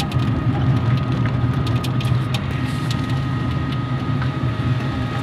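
A small vehicle running steadily while it drives along, heard from on board: a constant low engine hum with a thin steady whine above it, and light clicks and rattles from the vehicle's body.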